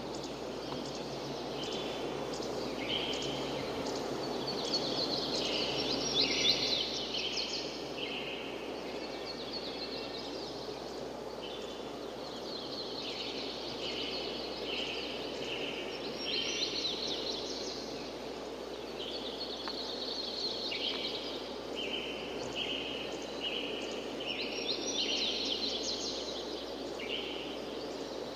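Songbirds singing, phrase after phrase of quick high chirping notes with small pauses between, over a steady rushing background noise.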